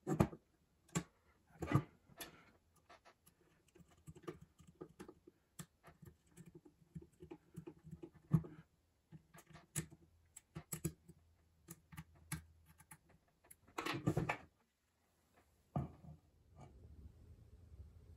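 Ruger Mark IV pistol parts and a red-dot sight mount being handled and fitted together on a wooden bench: irregular small metal clicks, taps and knocks, with a louder clatter about 14 seconds in. Near the end the clicks stop and a faint steady low noise remains.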